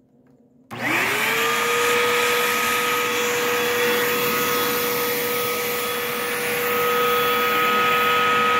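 Hoover Elite Rewind Plus upright vacuum cleaner switched on: the motor spins up with a quickly rising whine, then runs loud and steady. Its brush-roll drive belt is broken, so the roller brush is not turning.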